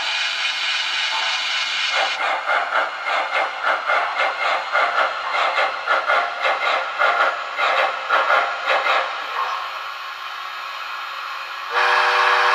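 Recorded steam-locomotive sounds from the MTH DCS sound system in an HO-scale Erie 2-8-8-8-2 Triplex, played through the model's small speaker. A steady steam hiss gives way to a regular run of chuffs at about two to three a second. After that comes a quieter hiss, and a multi-tone steam whistle blows near the end.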